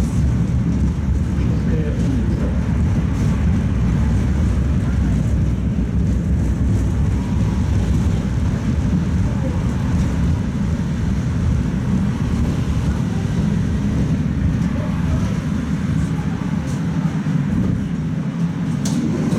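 Tatra T3 tram running along the track, heard from inside the passenger car: a steady low rumble of wheels and running gear. The low rumble eases somewhat near the end.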